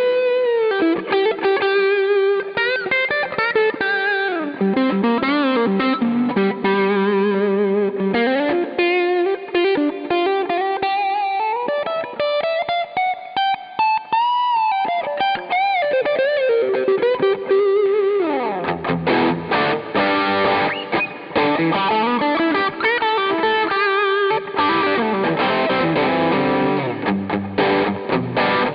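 Eko LP-P90 electric guitar with P-90 pickups, played through an overdriven amp. It starts with single-note lead lines with string bends and vibrato, then moves to strummed chords about two-thirds of the way in.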